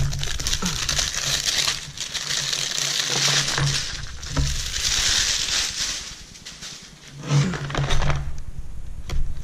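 Clear plastic wrapping crinkling and rustling as it is pulled off a cardboard box, with a few dull knocks near the end as the box is handled.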